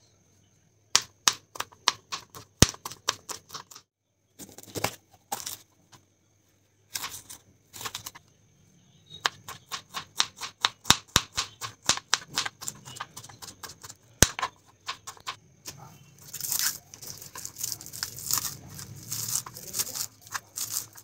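Kitchen knife chopping green beans, capsicum and spring onions on a plastic cutting board: runs of quick, sharp taps as the blade cuts through and strikes the board, with a few short breaks. The strokes come faster and denser in the last few seconds.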